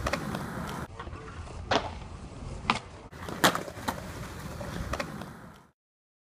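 Skateboard wheels rolling on a smooth concrete skatepark surface, with a few sharp clacks of the board hitting the ground. The sound fades to silence near the end.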